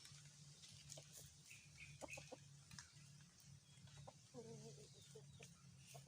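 Near silence with faint outdoor sounds. A short, faint bird call, clucking like fowl, comes about four and a half seconds in, with a few faint chirps and small clicks over a low steady hum.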